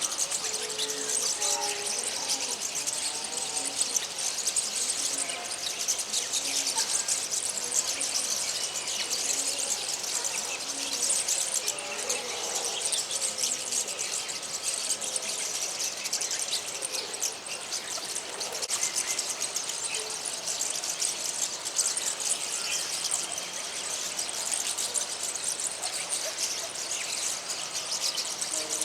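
A flock of small birds chattering and singing together: a dense, steady stream of quick high chirps and twitters.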